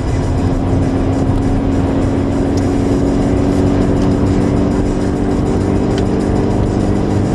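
Opel Meriva driving at a steady speed, heard from inside the cabin: a steady engine drone under road and tyre noise.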